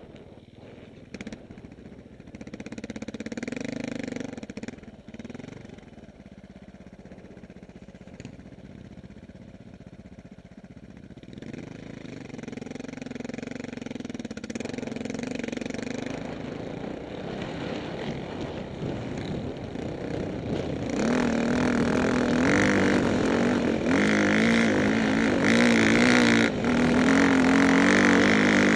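Dirt bike engines running on a trail, the nearest bike loudest. At first it is quieter and uneven. About three-quarters of the way through it turns much louder, the engine pitch wavering up and down as the throttle works under load.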